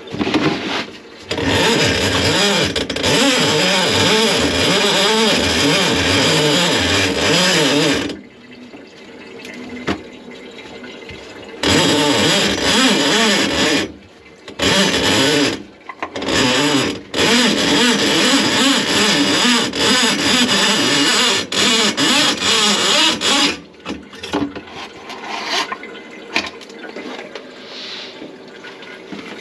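Water rushing loudly through a kitchen sink drain line that has been clogged with grease. It starts and stops abruptly: one run of about seven seconds, a few short bursts, another run of about six seconds, then only faint sounds.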